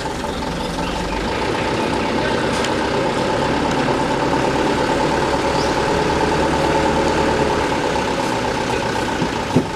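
Mitsubishi Fuso dump truck's diesel engine running steadily while its hydraulic hoist raises the dump bed to tip hot asphalt, with a steady whine over the engine.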